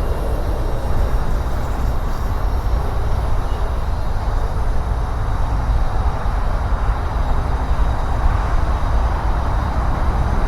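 Freight train rolling past: a steady, loud rumble and rush of wheels and cars on the track.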